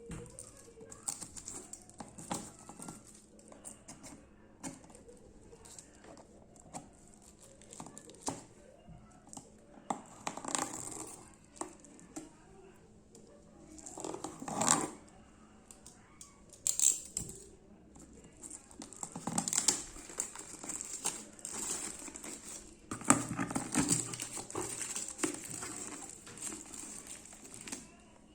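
Shoe-box packaging being handled and unpacked: paper and packing material crinkling and rustling in irregular bursts, with small clicks and knocks of handling.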